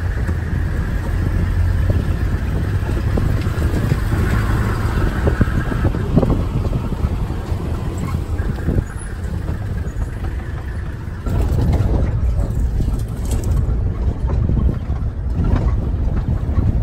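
Open-sided safari vehicle driving over a rough dirt track: steady engine and road rumble with scattered knocks and rattles, growing louder about eleven seconds in.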